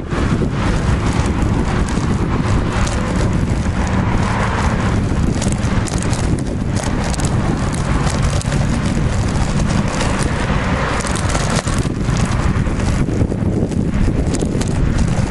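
Wind rushing over the microphone of a camera on a moving bicycle, with cars passing on the road alongside.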